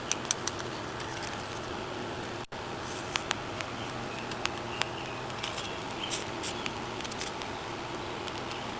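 Light rain: scattered, irregular taps of raindrops on an open umbrella's fabric canopy over a steady outdoor hiss.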